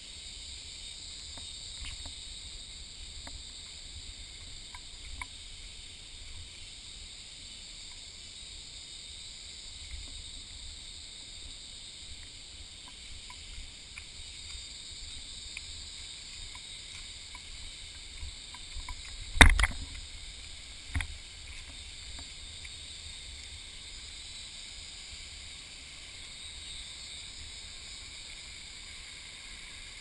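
Footsteps on a leaf-littered forest trail over a steady high hiss of outdoor ambience. About two-thirds of the way through comes one loud knock, then a smaller one a second and a half later.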